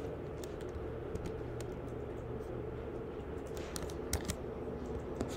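Computer keyboard keys tapped in short, scattered runs of clicks, over a steady low hum.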